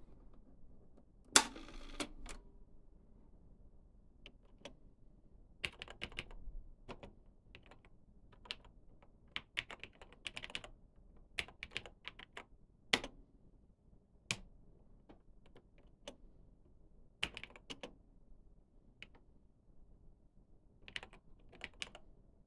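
Typing on a TRS-80 Model 100's mechanical keyboard: irregular key clicks in short runs with pauses between. About a second in comes a single sharp clack, the loudest sound, as a key on the cassette recorder is pressed.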